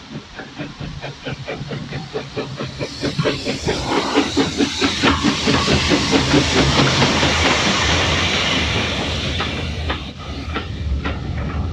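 Steam locomotive working past, its exhaust beats coming about four a second and growing louder, with a strong hiss of steam through the middle. Near the end, sharp clicks of wheels over the rail joints.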